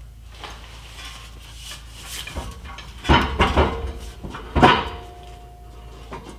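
Metal clanking and knocking as a truck's factory diesel particulate filter is worked loose from its exhaust hanger and bracket. The two loudest knocks come about three and four and a half seconds in, and the second leaves a brief metallic ring.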